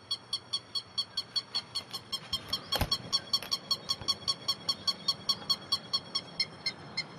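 Lapwing calling: a rapid, even series of short sharp notes, about four or five a second. A single loud knock cuts across the calls about three seconds in.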